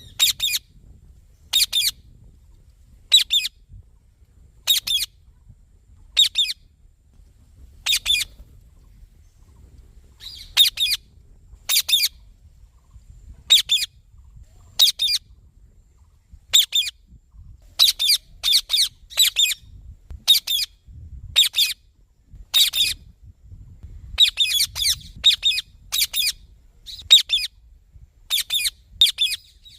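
Indian ringneck parakeet giving short, high-pitched squawking calls, one roughly every second and a half, bunching into quicker runs of two or three calls near the end.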